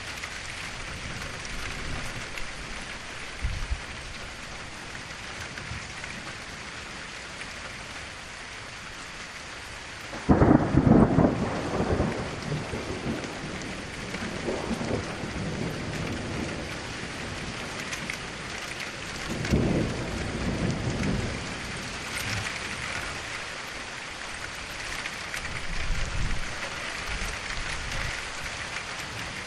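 Steady rain falling, with a thunderstorm rolling through. A loud crack of thunder comes about a third of the way in and rumbles on for a couple of seconds. Weaker rumbles follow about two-thirds of the way in and again near the end.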